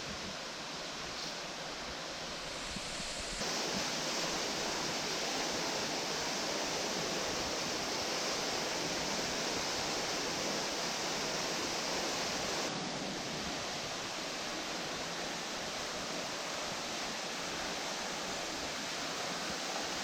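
Steady rush of falling water from a waterfall and its stream, changing abruptly in level and tone about three seconds in and again about thirteen seconds in.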